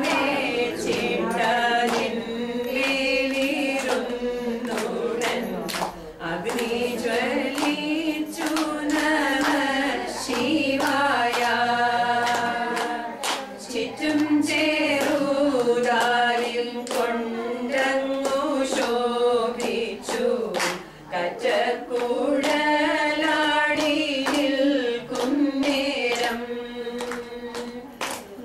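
A group of women singing a song together in unison without instruments, with hand claps scattered through the singing.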